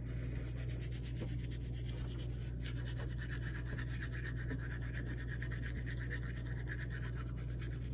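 Manual toothbrush scrubbing teeth: a steady, rapid scratchy rubbing of bristles, over a steady low hum.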